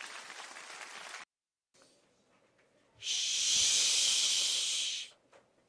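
A long "shhh" shushing sound, about two seconds, starting about three seconds in. A fainter hiss runs through the first second before it.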